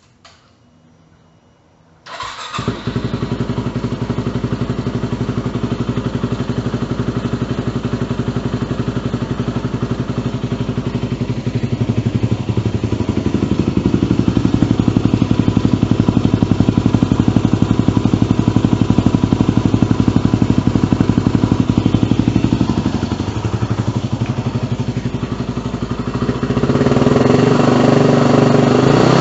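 Yamaha WR250R's single-cylinder four-stroke engine, breathing through an FMF aftermarket muffler, starts about two seconds in and settles into a steady idle. The sound gets louder about halfway through and again near the end.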